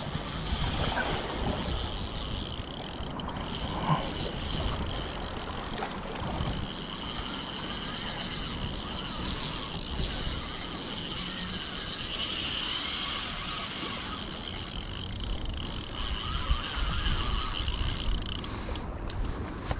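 Spinning reel ratcheting and whining under load as a hooked crevalle jack pulls against the rod. The high whine grows louder about two-thirds of the way through and again near the end.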